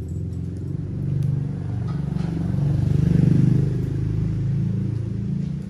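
A motor engine running steadily and swelling louder about halfway through.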